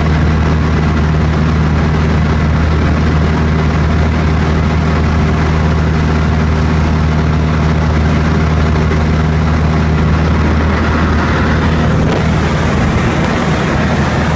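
Light aircraft's piston engine and propeller droning steadily, heard from inside the cabin, the tone shifting slightly near the end.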